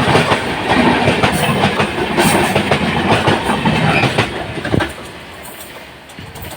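Passenger express train coaches passing close by, their wheels clattering over the rail joints in a dense run of clicks. The noise falls away sharply about five seconds in as the train goes by.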